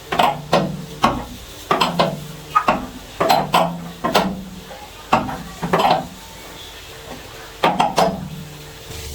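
Repair work with hand tools and hard parts: a string of irregular sharp clinks and knocks, roughly two a second, a pause of over a second near the end, then two more knocks.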